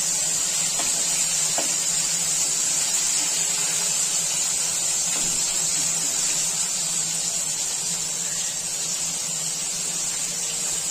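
Bombil (Bombay duck) fish sizzling steadily as they shallow-fry in hot oil in a pan over a gas flame turned up full.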